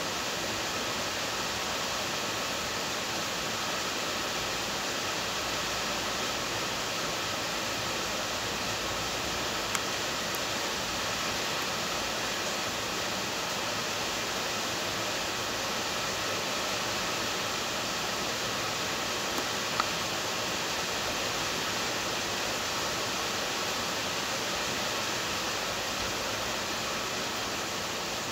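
Heavy rain falling as a steady, dense hiss, with a couple of brief ticks about a third and two thirds of the way through.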